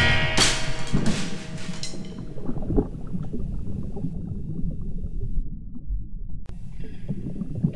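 Muffled underwater gurgling and bubbling of churning water, heard through a submerged action camera. Rock music fades out over the first two seconds.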